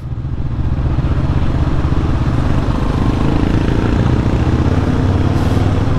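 Motorcycle engine running steadily while riding, growing a little louder in the first second.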